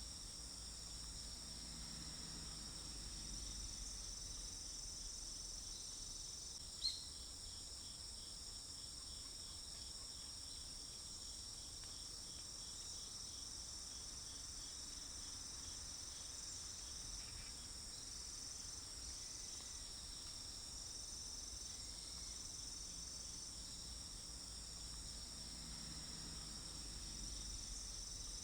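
Insects chirring steadily and continuously in a high pitch range, over a faint low rumble. A single sharp click comes about seven seconds in.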